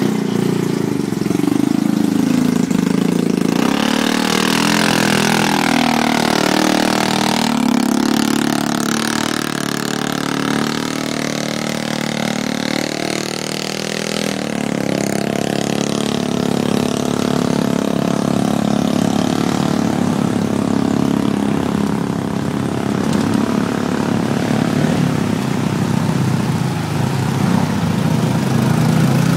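ATV engines running and revving, rising and falling in pitch, as the machines plough through a flooded mud ditch. Water splashes and churns, loudest a few seconds in and again about halfway.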